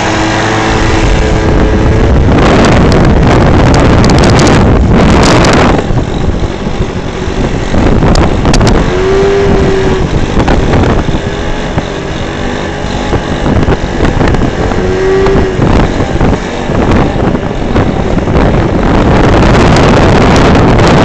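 Motor scooter engines running at road speed under heavy wind rush on the microphone. The engine note swells briefly a couple of times as the rider revs to lift the front wheel.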